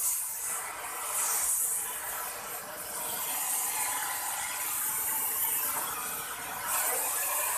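Oxy-acetylene gas torch hissing steadily, the hiss swelling louder briefly near the start, about a second in, and again near the end.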